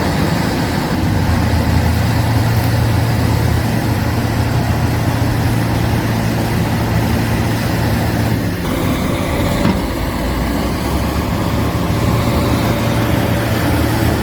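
Diesel engine of heavy earthmoving equipment running steadily, with a steady low hum; its tone shifts a little past halfway through.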